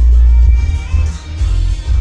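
Recorded music played loud, dominated by deep bass from a 15-inch subwoofer driven by a home-built 500-watt mono amplifier, in a bass sound test.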